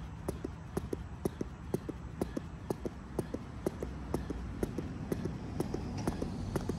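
A 3.5 lb weighted jump rope being skipped on a plyo mat: the rope slaps the mat and the feet land in a steady rhythm of sharp knocks, about two a second.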